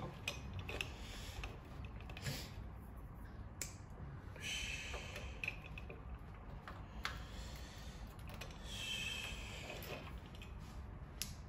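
Light clicks and soft rustling from small plastic parts of a capsule-toy miniature weight machine being handled and snapped together, with three brief hissy rustles.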